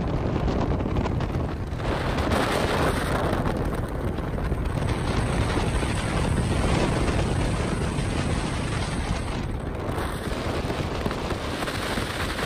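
Bass boat running at speed, with heavy wind rushing over the camera microphone on top of the outboard motor; a steady loud rush with a couple of brief slight dips.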